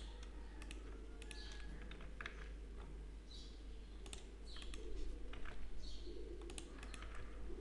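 Computer keyboard and mouse clicks: scattered light keystrokes and clicks, including the G (grab) shortcut tapped while moving mesh vertices in Blender.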